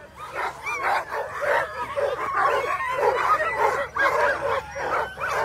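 A harnessed team of Alaskan huskies barking and yipping in a continuous, overlapping chorus: the excited noise of sled dogs straining to be let go at the start line.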